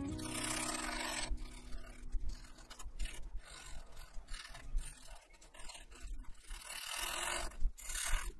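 Felt tip of a brown Sharpie permanent marker scratching over paper as an area is coloured in, in strokes of varying length, with a long stroke at the start and another near the end.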